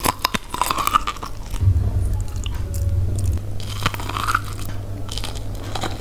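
Close-miked biting and chewing of steamed corn on the cob: a run of crisp crunches and clicks as the kernels are bitten off the ear.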